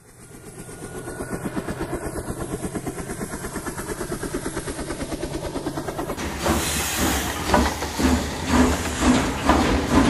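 Helicopter rotor chop, a fast steady beating that fades in; at about six seconds it gives way to a steam locomotive chuffing, with hissing steam and strong regular chuffs about one a second.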